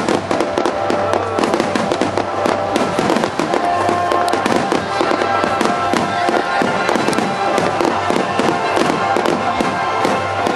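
A continuous barrage of aerial firework shells bursting and crackling, many bangs a second, with music playing underneath.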